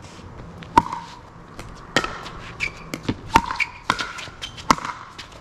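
Pickleball paddles striking the plastic ball in a rally: four sharp pops with a short ring, a little over a second apart, and fainter taps between them.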